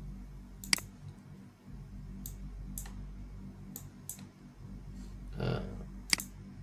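About six sharp, isolated clicks from work at a computer, spaced irregularly, the loudest about three-quarters of a second in, over a steady low hum. A brief soft low noise comes just past halfway.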